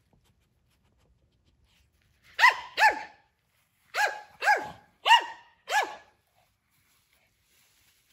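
A small long-haired dog barks six times, two barks and then a run of four, each bark dropping in pitch. The dog is barking out of confusion at a food bowl it cannot reach.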